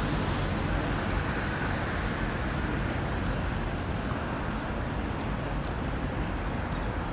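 Steady outdoor city ambience: an even hum of distant road traffic, with a few faint ticks in the second half.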